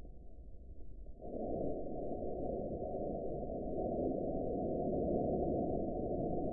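Steady radio static hiss, which comes up louder about a second in.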